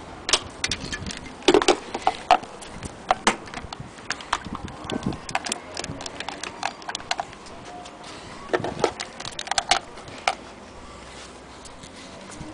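Scattered light clicks and knocks at irregular intervals: handling noise from hands and camera moving around a wooden sewing-machine cabinet and its drawer. The sewing machine is not running.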